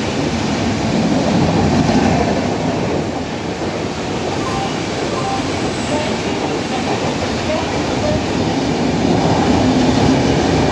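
Indian Railways express train coaches passing close by at speed: a steady, loud rumble and rattle of wheels on the rails as carriage after carriage goes by.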